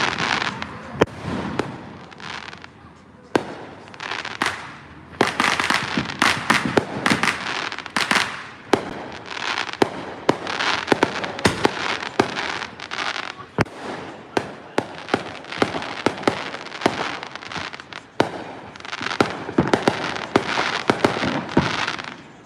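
Fireworks going off in quick succession: many sharp bangs and pops with crackling between them, easing for a moment about two seconds in.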